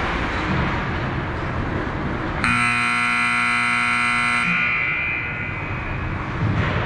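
Ice rink scoreboard horn sounding once for about two seconds, starting and cutting off abruptly, over steady arena noise.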